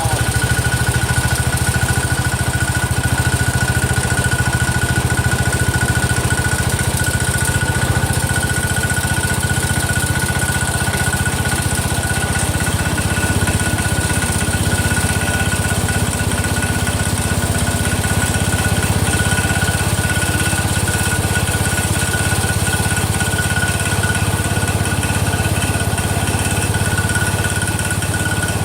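Cub Cadet 102's freshly rebuilt single-cylinder Kohler engine running steadily on its first cold start, with a thin steady whine above the engine note. The owner suspects the noise comes from the front pulley, which turns out to be bent and catching a bolt.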